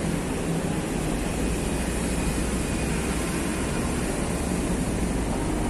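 Steady hum of city road traffic, an even rumble with no distinct events.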